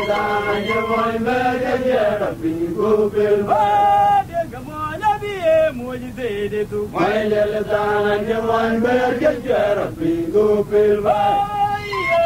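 Chanted singing: a voice holding long notes in phrases, sliding in pitch between them, with short breaks between phrases.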